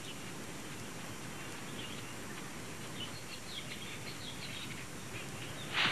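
Faint bush ambience: scattered short, high bird chirps over a steady background hiss, with a sudden louder noise just at the end.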